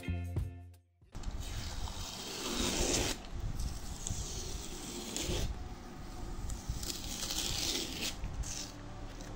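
Background music stops about a second in. Then a sheet of drawing paper rustles and scrapes as a hand shifts it on the table, a few swishes over a steady hiss.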